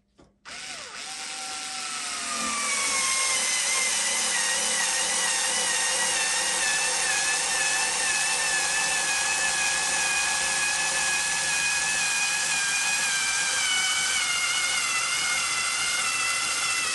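Makita 3.6 V cordless pencil screwdriver's motor and gearbox whining steadily as it drives a long wood screw down through two stacked blocks of wood. It starts about half a second in and the whine sags slowly lower in pitch under the load.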